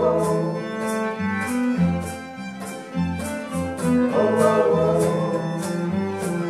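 Acoustic string band playing an instrumental passage live: fiddle over strummed acoustic guitar, with acoustic bass guitar and cello below. Strong bass notes and strums fall about twice a second.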